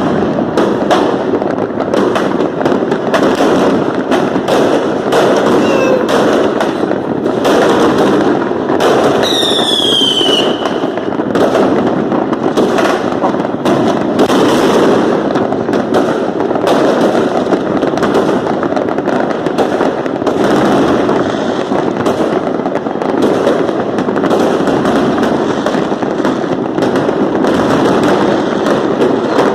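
Fireworks and firecrackers going off in a dense, continuous barrage of bangs and crackles. About nine seconds in, a whistle falls in pitch for a second or so.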